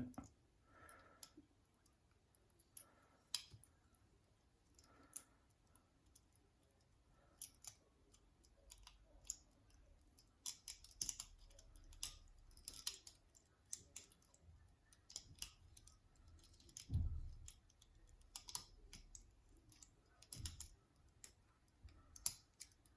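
Lever lock picks working inside a Securit 6-lever padlock: faint, irregular small clicks and scrapes as the levers are lifted under tension on the bolt. A dull knock comes about seventeen seconds in.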